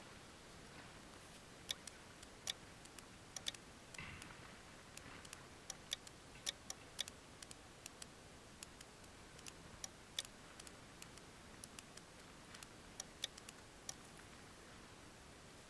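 Faint, irregular small sharp clicks, one to a few a second, from the knobs and buttons of a portable amateur radio transceiver being turned and pressed. A brief soft rustle comes about four seconds in.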